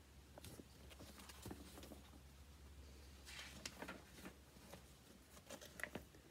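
Faint rustling and soft ticks of printed paper pages being handled and turned, over quiet room tone, with a slightly louder rustle a little past the middle.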